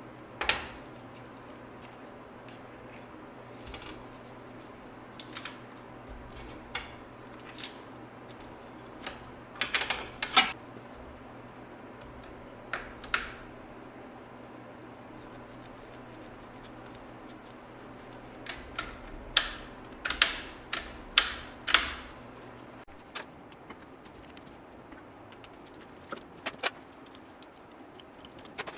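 Scattered clicks and clinks of tools and parts being handled, some single and some in quick clusters, over a steady low hum that cuts out about 23 seconds in.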